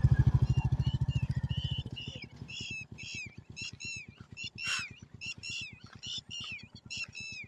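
Royal Enfield Meteor 350's single-cylinder engine thumping at low revs, fading away within the first two seconds as the motorcycle rides off along the dirt track. Then a steady run of short, high, repeated chirping animal calls, several a second, with one louder call near the middle.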